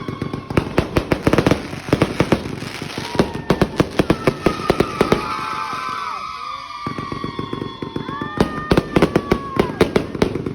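Eclipse 260-shot firework cake firing: rapid volleys of sharp bangs, with whistles sliding down in pitch between them. It thins out about six seconds in, then a second fast volley of bangs starts about two seconds later.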